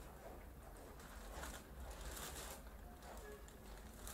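Faint room tone with a low hum and a few faint ticks; no clear sound event.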